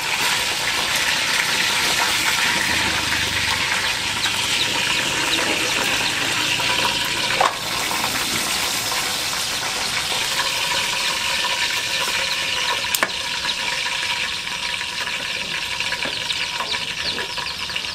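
Steady hiss of a steel pot cooking on a portable gas stove, with a utensil clinking against the pot twice.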